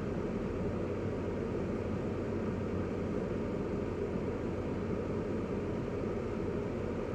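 Steady low hum of a car's engine idling, heard from inside the parked car's cabin.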